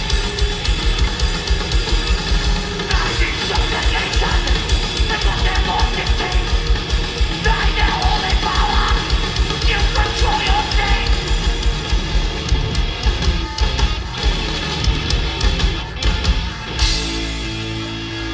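Hardcore punk band playing live, loud and fast: rapid pounding drums, distorted guitar and shouted vocals. About a second before the end the drums stop and a held chord rings on.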